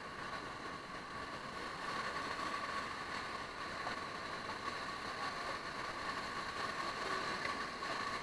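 Steady rushing of whitewater rapids around an inflatable raft, growing a little louder about two seconds in.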